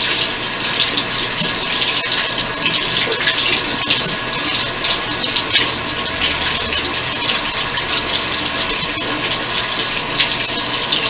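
Bathroom sink faucet running steadily, its stream splashing over a makeup brush being rinsed under it by gloved hands.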